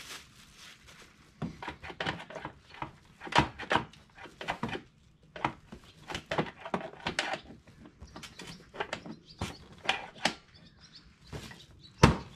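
Irregular clicks, knocks and rattles of a replacement seat being worked onto a mini ATV's frame, ending in a louder thump as the seat is pressed down onto the frame.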